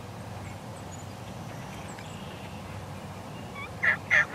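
Wild turkey tom beginning a gobble near the end: a sudden, loud, rapid rattle of notes. Before it, only faint songbird chirps.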